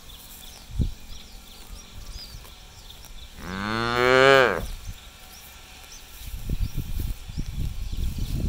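A cow moos once, a single call of just over a second near the middle, rising slightly in pitch and then falling. Low irregular crunching of grass being torn and chewed starts at about 0.8 s and builds toward the end.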